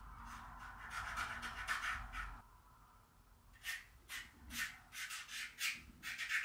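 A drawing tool scratching across paper in quick rubbing strokes. A dense run of strokes comes first, then a short lull about two and a half seconds in, then sharper separate strokes about two or three a second.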